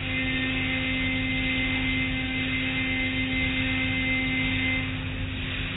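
Automatic car wash machinery running over a steady wash of water-spray noise. A steady electric hum starts suddenly and stops about five and a half seconds later.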